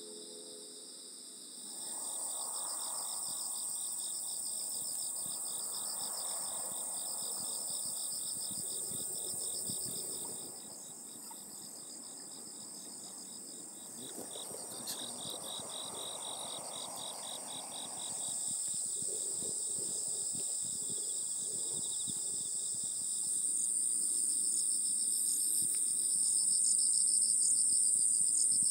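Crickets and other autumn insects chirping in rapid pulsed trills over a steady high-pitched ringing hum, louder in the last few seconds.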